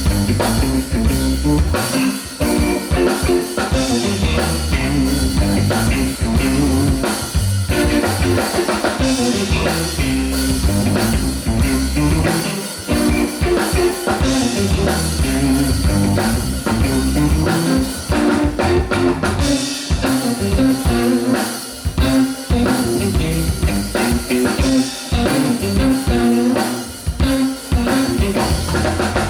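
Live band playing loudly: a drum kit driving the beat, with guitar and bass.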